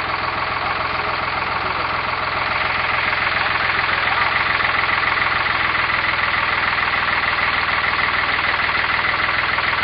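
Farm tractor engine running steadily, picking up slightly about three seconds in and holding there.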